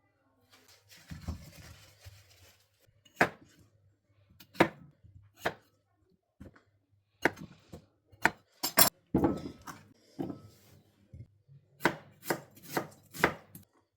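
Knife chopping on a cutting board in slow, irregular strokes: about a dozen sharp knocks, some in quick pairs. A soft hiss is heard in the first couple of seconds.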